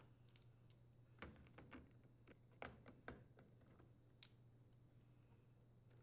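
Faint, scattered clicks and taps of pliers working the retaining clamps on the rubber hoses of a washing machine's water inlet valve.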